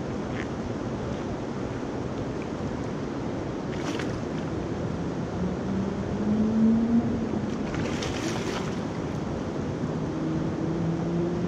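Steady rushing of the James River's fast current over rocks. A low droning hum rises slightly about six seconds in and again near the end.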